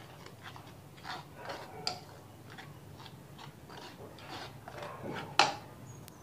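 Plastic spoon stirring dry flour in a plastic bowl: soft, irregular scrapes and light knocks against the bowl, with one louder stroke near the end.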